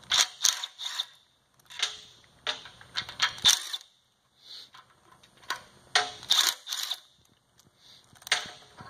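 Steel bolts and tools clinking in short, separate clusters of sharp metallic clicks as the pump's bearing cap bolts are taken out and set down.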